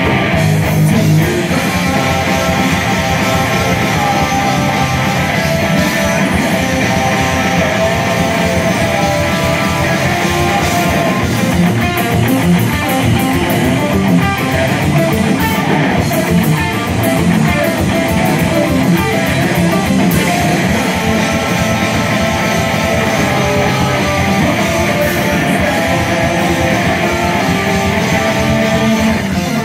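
A rock band playing loud and steady live, with electric guitars, bass guitar and drums.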